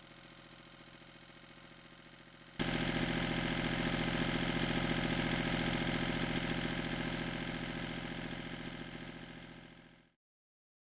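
Volvo Penta MD2003 three-cylinder marine diesel running steadily, on test after its raw water pump was resealed. The sound suddenly gets much louder about two and a half seconds in, then fades away near the end.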